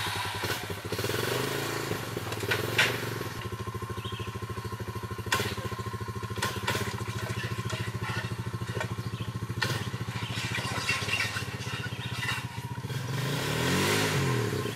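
ATV engine idling steadily with a fast, even chug, broken by a few sharp metallic clanks; near the end the engine revs up and back down.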